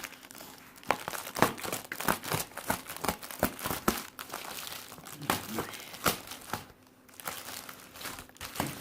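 Packaging crinkling and crackling with sharp irregular clicks as a puzzle cube's box is cut and worked open, easing off briefly about seven seconds in.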